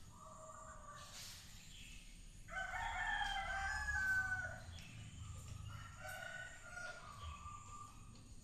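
A loud, pitched animal call lasting about a second and a half, starting about two and a half seconds in, with fainter calls around five and seven seconds.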